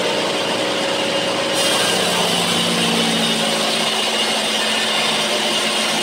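Bandsaw mill running, its blade sawing through sengon (albasia) timber with a loud, steady noise. About a second and a half in, the sound turns sharper and a steady hum joins it.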